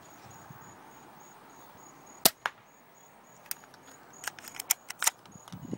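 Airsoft gun firing: one sharp snap about two seconds in, then a run of lighter clicks and snaps between about three and a half and five seconds.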